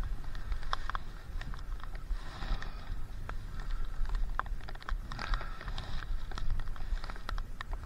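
Water splashing and dripping in quick, irregular ticks, over a low rumble of wind on the microphone.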